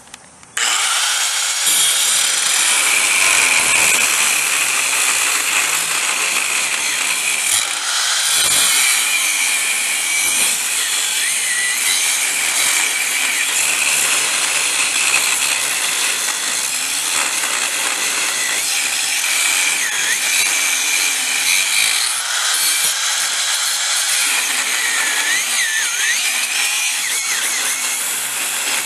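Milwaukee 4.5-inch corded angle grinder starting up about half a second in and grinding steel, a steady high whine whose pitch dips briefly a few times in the second half. It is grinding down a broken trailer ramp tab as prep for welding.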